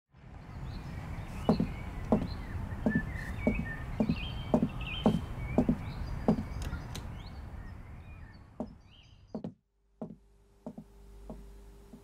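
Regular knocks, about two a second, over a low rumble with birds chirping; the sound cuts off abruptly near the end, leaving a quieter room with a steady hum and a few ticks.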